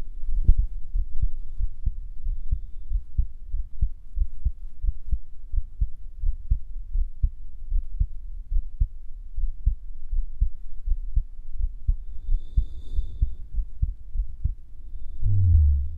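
A man's heartbeat, heard close up, pounding as low thumps in a steady rhythm. Near the end comes a short, low sound falling in pitch.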